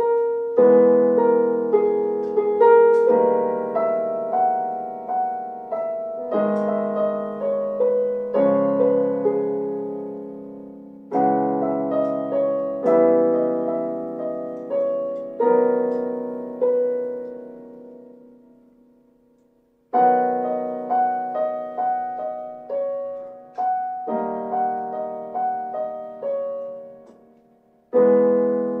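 Solo piano music: a slow piece of struck chords under a simple melody, each note ringing and fading away. The playing dies out to silence about two-thirds of the way through, then starts again, with another brief break near the end.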